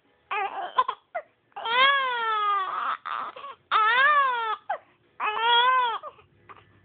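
Infant crying with hiccups: short sharp catches about a second in, then three long wailing cries that rise and fall in pitch.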